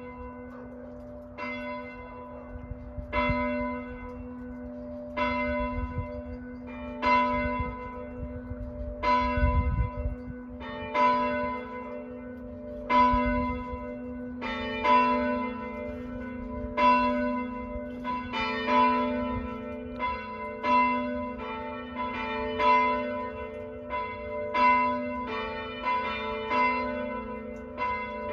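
Church bells ringing in full peal (plenum). At first one low bell strikes about every two seconds. From about seven seconds in, higher bells join one after another, and the strikes grow denser as all the bells ring together.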